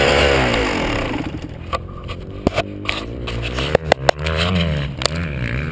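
Yamaha YZ125 two-stroke engine running. Its pitch falls away from high revs at first, then rises and falls in short blips, with several sharp clicks and knocks close to the handlebar-mounted camera.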